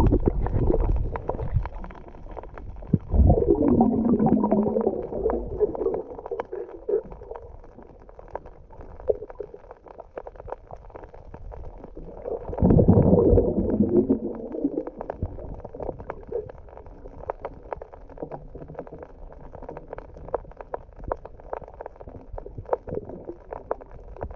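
Underwater sound picked up by a camera in a waterproof housing: a muffled water rumble with two louder bubbling swells, about three and about twelve seconds in, over a steady crackle of fine clicks.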